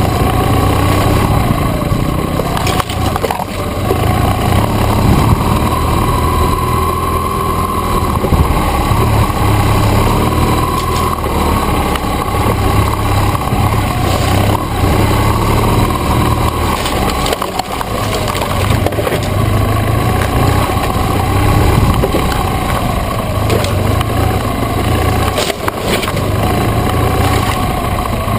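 BMW GS adventure motorcycle's engine running at low speed on a rough trail, its revs rising and falling, with scattered knocks and cracks from the bike jolting over the ground and pushing through brush and twigs.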